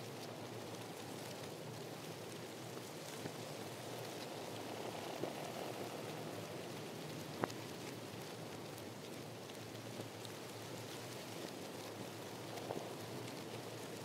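Steady outdoor ambience: an even rushing hiss with a few scattered sharp ticks, the loudest about seven and a half seconds in.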